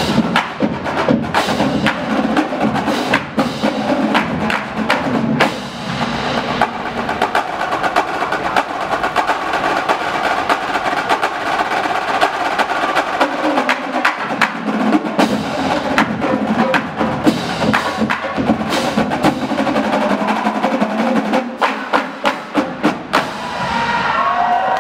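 Drumline playing a fast, dense percussion passage on drums, with sharp stick clicks throughout. Near the end come a few separate, spaced hits, then the crowd begins to cheer.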